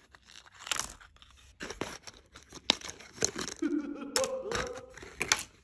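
Paper rustling and crinkling with light clicks as a small handmade paper box is opened and handled and small plastic pieces are set on a table. A short pitched sound, like a voice, comes in about two-thirds of the way through.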